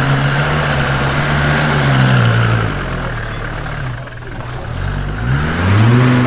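Mercedes-Benz 300 GD's 3-litre naturally aspirated five-cylinder diesel engine revving. It is held up for the first couple of seconds, drops away a little under three seconds in, then rises again near the end.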